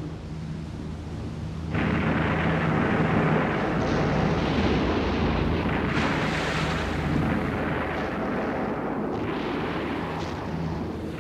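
A continuous battle din of explosions and gunfire. A low droning rumble gives way suddenly, about two seconds in, to a dense roar with sharp blasts through it.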